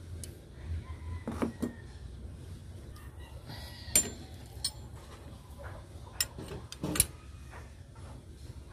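Scattered metal clicks and clinks as steel parts are handled and clamped with vise-grip locking pliers, with two sharper knocks about four and seven seconds in.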